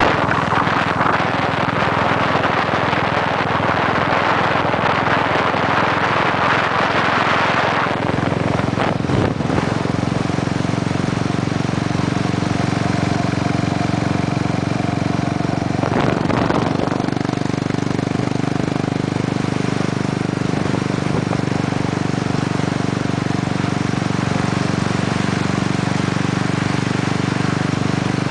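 Motorcycle engine running at a steady cruise while riding, with wind rushing over the microphone. The wind noise is heaviest for the first eight seconds or so, then the steady engine hum comes to the fore.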